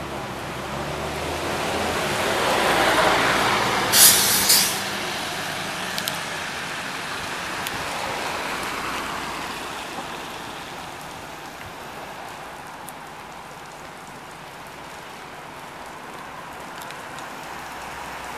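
Scania OmniLink CL94UB city bus pulling away on a wet road, its engine and tyre hiss swelling for a few seconds and then slowly fading. About four seconds in comes a short, loud hiss of compressed air from the bus's air system.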